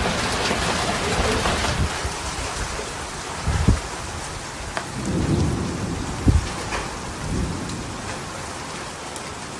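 Steady heavy rain falling, with low rumbles of thunder swelling and fading and a couple of short low thuds.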